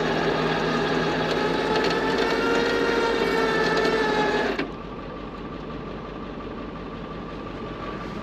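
Tow truck winch pulling a stuck SUV on its cable, a steady whine under load that cuts off suddenly about four and a half seconds in, leaving a quieter steady hum.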